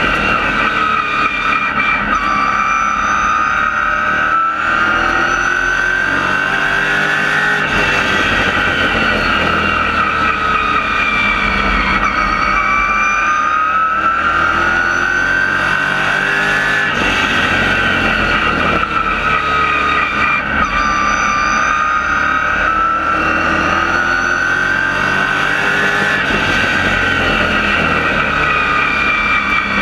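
Race car engine heard from inside the cockpit at racing speed, its pitch climbing and falling about every nine seconds as the car accelerates and lifts lap after lap around the oval.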